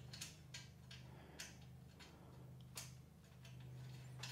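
Faint, irregular metallic clicks and taps of small hardware being handled as nylon lock nuts are fitted onto M8 bolts, about five clicks scattered over a few seconds, over a low steady hum.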